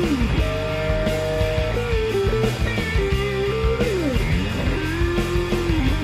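Rock-style background music: a guitar melody that steps and slides in pitch over a steady beat.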